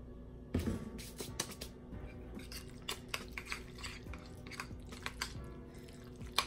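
A metal fork stirring tuna salad in a white bowl: quick irregular clinks and scrapes against the bowl, after a single knock about half a second in.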